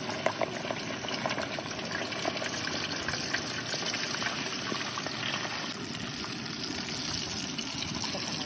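Hot frying oil sizzling and bubbling around a whole turkey in a turkey-fryer pot: a steady hiss thick with small crackles.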